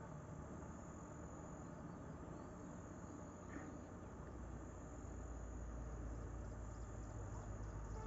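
Faint outdoor ambience: insects trilling steadily in a thin, high tone. A low rumble grows about five seconds in.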